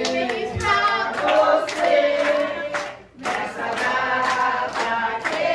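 A group of people singing together in chorus, with hands clapping along; the singing breaks off briefly about three seconds in.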